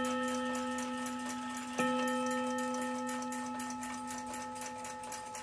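Chelsea ship's bell clock's repaired gong rod struck by its hammer about two seconds in, ringing and slowly fading over the ring of a strike just before. The movement ticks quickly underneath.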